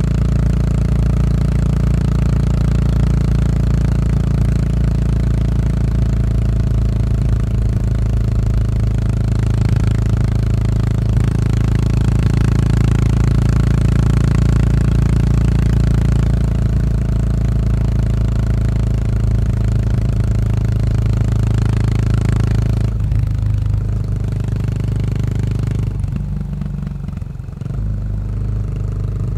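Yamaha SR400 single-cylinder four-stroke running through a slip-on muffler, with the bike cruising at a steady throttle. About 23 seconds in the throttle eases and the note drops. Near the end the pitch and level dip briefly, then the note steadies again.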